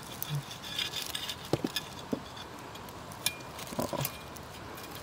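Faint, scattered light clicks and rustles of dry soil and leaf litter as a metal trowel works at the ground beside a centipede.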